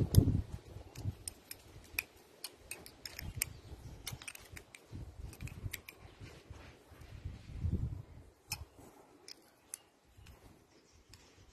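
Irregular light clicks and ticks of small metal parts being handled on a Paris-Rhône starter solenoid worked by hand, with a few dull knocks now and then.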